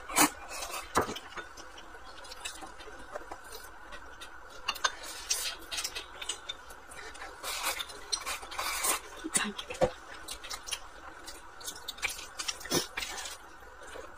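Close-up eating sounds: glass noodles slurped and chewed, with wooden chopsticks clicking against a glass bowl in short, scattered taps.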